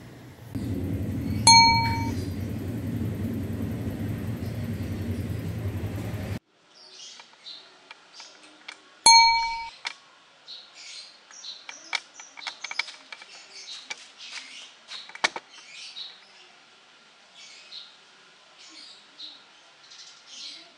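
A bright bell-like ding, heard twice about seven and a half seconds apart. The first comes over a steady low rumbling noise that cuts off suddenly about six seconds in. Scattered light clicks and short high chirps follow.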